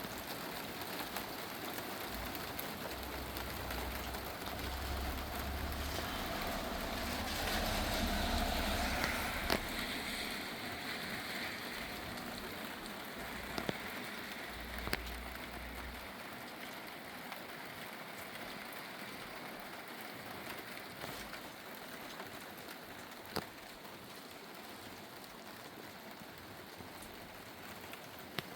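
Rain shower falling steadily, with a few sharp ticks of drops striking something close by. A low rumble swells in the first half, loudest about eight seconds in, and dies away by the middle.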